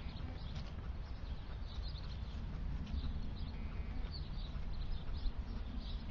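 Small birds chirping here and there over a steady low rumble.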